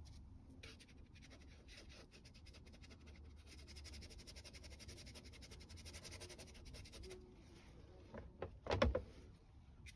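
Fine watercolour brush scrubbing and dabbing on Saunders Waterford paper: a fast, faint run of light scratchy strokes. A brief louder knock-like sound comes near the end.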